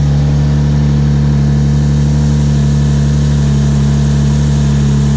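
Lexus IS300's 3.0-litre inline-six engine running at a steady idle.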